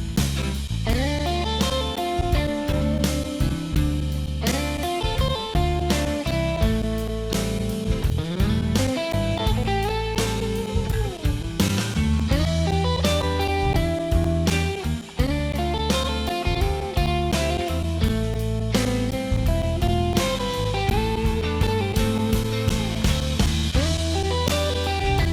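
Instrumental background music: a blues-style electric guitar lead with bending notes over a steady bass and drum beat.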